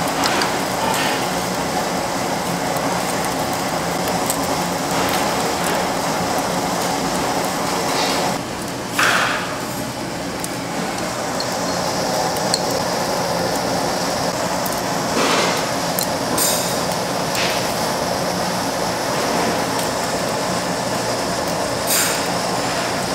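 A steady background noise at a tabletop grill, with a few short clinks of metal chopsticks and tongs against dishes.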